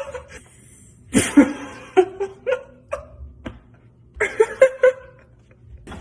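A person laughing in short bursts, with quiet pauses between them.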